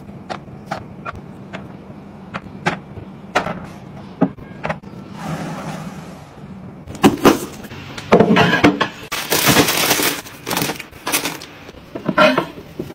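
Knocks, clicks and clattering from household items being handled: glass bottles set into a plastic turntable tray and a wire mesh drawer being pulled out. Separate sharp knocks come first, and a denser run of clattering and rattling about halfway through is the loudest part.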